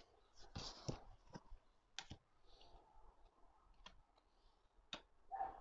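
Faint clicks and taps of oracle cards being handled as a card is drawn and laid on the deck: a small cluster about half a second in, then single clicks about a second apart.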